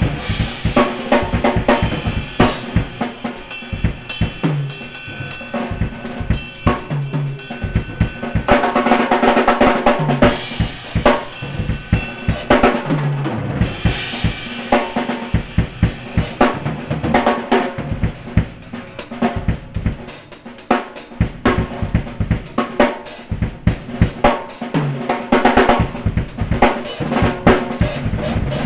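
Drum kit solo: rapid snare and tom strokes over bass drum hits, with the TRX cymbals ringing throughout.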